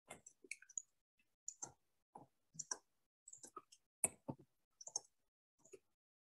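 Computer keyboard keys clicking in uneven runs, about three clicks a second, some in quick pairs or triples.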